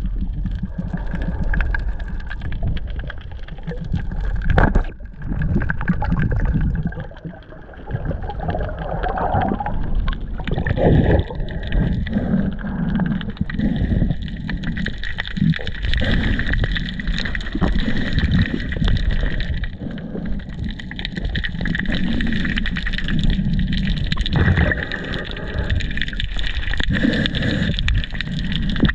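Underwater noise picked up by an action camera in its waterproof housing as a spearfisher swims: a steady low rumble of moving water with uneven gurgling surges, and a faint steady whine above it.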